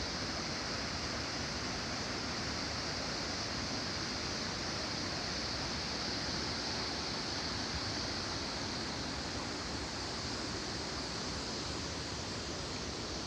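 Waterfall's water rushing: a steady, unbroken hiss-like roar of falling and flowing river water.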